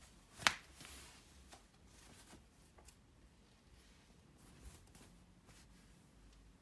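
Quiet room tone with one sharp tap or click about half a second in, followed by faint scattered small ticks and rustles.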